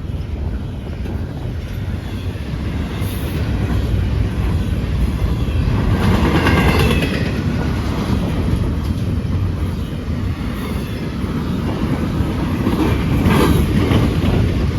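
CN freight train rolling past, its wheels clattering steadily over the rail joints with a low rumble. Brief high wheel squeals rise out of it twice, about six seconds in and again near the end.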